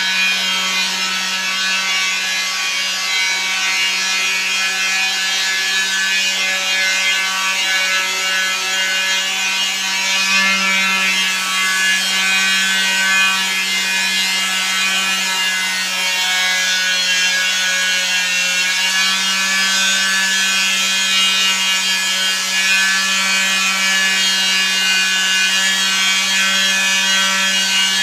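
A small electric motor buzzing steadily and without a break, its pitch shifting slightly now and then.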